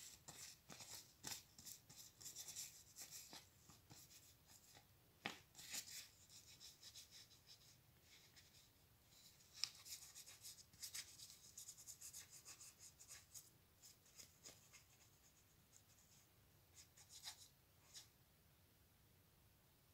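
Faint rustling and crinkling of a sheet of thin white paper handled and bent by hand, with scattered soft ticks and scrapes. The sounds thin out in the last few seconds.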